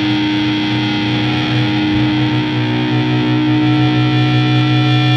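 Heavily distorted electric guitars holding a sustained, droning chord, played live through a concert PA. A low note begins pulsing rapidly about two seconds in, with no drum hits.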